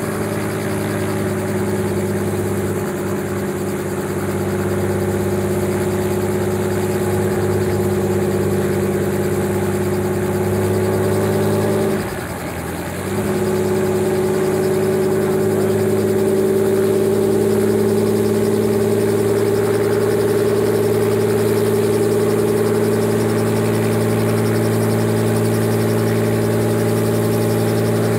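Small helicopter running at ground idle on the pad: a steady engine drone that dips briefly about twelve seconds in, then carries on.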